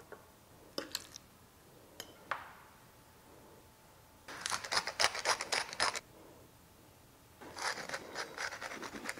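A few light clinks of a fork on a plate, then a small glass spice jar shaken in a quick rattle for about two seconds, then a hand-held spice grinder twisted, a fast run of gritty clicks for the last couple of seconds.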